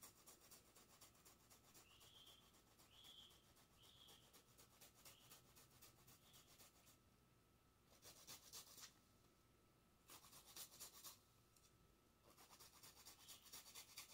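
Fresh ginger root grated on a flat metal hand grater: faint, quick repeated rasping strokes, with a few short pauses in the second half.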